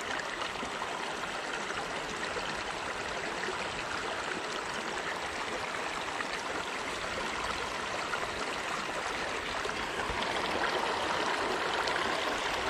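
Shallow river running over a rocky bed: a steady rush of flowing water that grows a little louder near the end.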